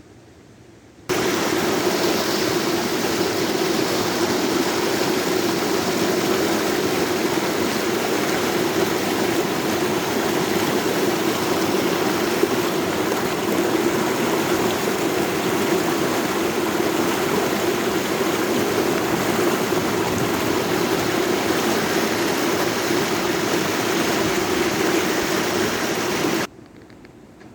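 Stream water rushing: a loud, steady noise that cuts in suddenly about a second in and cuts off suddenly near the end.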